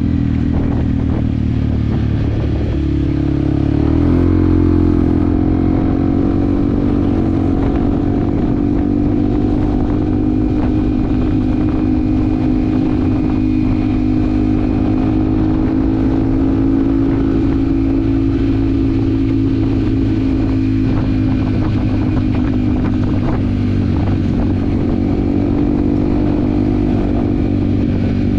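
Yamaha WR155R's single-cylinder four-stroke engine running on the move. Its note rises about three to four seconds in, then holds steady at cruising speed.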